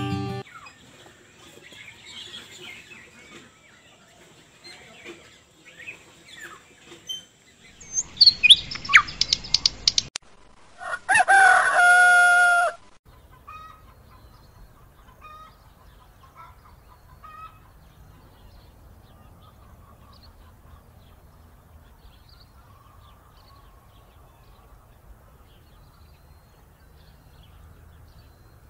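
Birds chirping, then a rooster crowing: a loud, held crow lasting about two seconds, peaking around twelve seconds in. This is a dawn sound marking daybreak, followed by a faint low hum.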